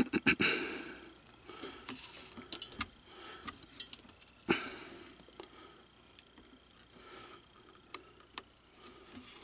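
Hand-stitching leather: scattered light clicks and taps of steel needles and fingers against the rifle's metal lever, with soft rustling of thread being drawn through the leather. A sharper click stands out about halfway through.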